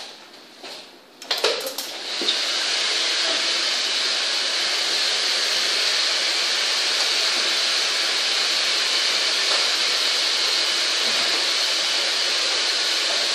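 A couple of clicks, then a hair dryer starts about a second and a half in and blows steadily.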